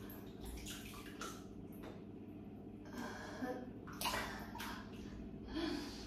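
Thick green bath slime sloshing and dripping as it is scooped up by hand and runs back into the bath, with a few short louder splashes, the loudest about four seconds in.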